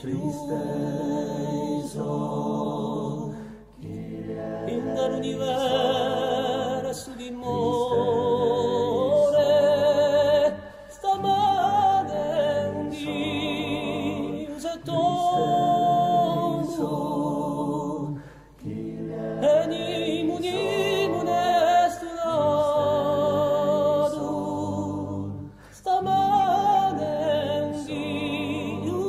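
Corsican polyphony sung a cappella by a small group of men's voices. The voices hold chords in phrases a few seconds long, with short breaks between them and wavering ornaments on the held notes.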